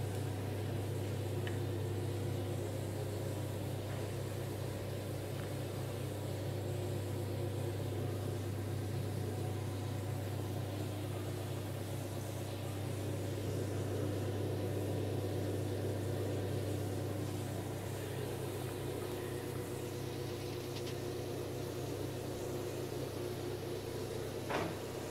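Aquarium pump humming steadily, a low even hum with fainter higher tones over it; a short click near the end.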